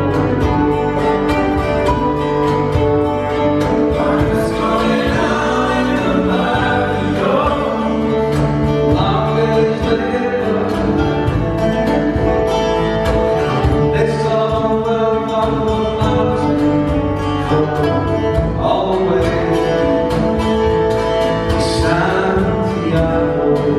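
Live acoustic band music: strummed guitars with a trumpet, and voices singing.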